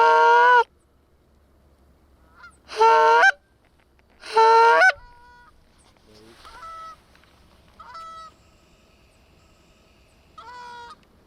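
Goose call blown by a hunter: three loud, drawn-out honks in the first five seconds, then shorter, quieter honks, used to call a single goose in toward the decoys.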